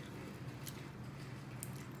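Close-up eating sounds: soft wet chewing and smacking, with a couple of faint clicks, over a steady low hum.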